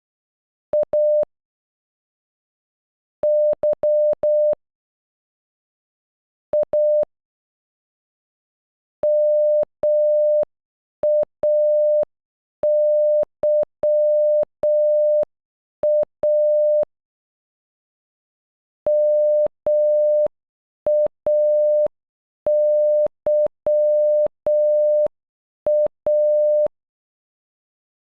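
Morse code beeps: a single steady mid-pitched tone keyed on and off in short dots and long dashes, spelling "Maya" (-- .- -.-- .-). In the first third the beeps come in small separated groups, letter by letter. From about a third in, the whole word is sent slowly twice.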